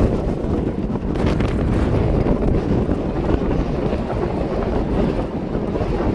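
Emirates Airbus A380's four jet engines running at departure power, a steady low rumble, with wind buffeting the microphone.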